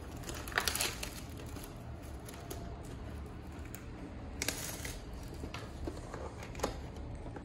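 Plastic wrapping crinkling and cardboard tearing as a box of trading cards is opened by hand, with louder rips about a second in and again midway.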